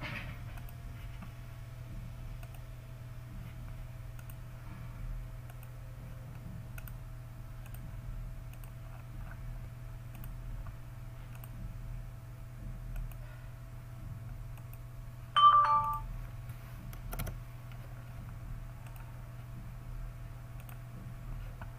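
Steady electrical hum with scattered computer mouse clicks. About fifteen seconds in, a short two-note computer chime sounds, a higher note then a lower one, and it is the loudest sound.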